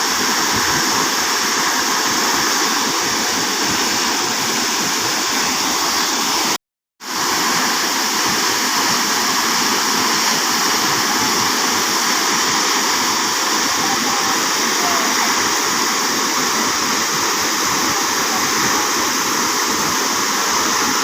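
Waterfall: steady, loud rushing of falling water. About six and a half seconds in it cuts out to silence for about half a second, then comes back unchanged.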